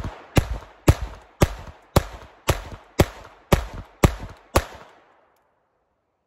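Glock 44 .22 LR pistol firing nine shots at an even pace of about two a second, each shot sharp with a short ringing tail. It cycles every round of Federal bulk ammunition without a jam.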